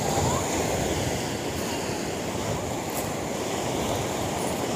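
Rough sea surf washing steadily onto a rocky beach.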